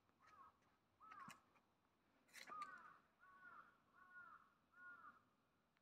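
A crow cawing over and over, about one short caw every 0.7 seconds, faint. The loudest, harshest caw comes about two and a half seconds in.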